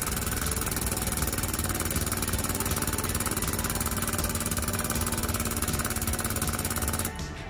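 Air-over-hydraulic floor jack's pneumatic pump chattering steadily and very rapidly as it lifts a semi trailer, cutting off abruptly about seven seconds in.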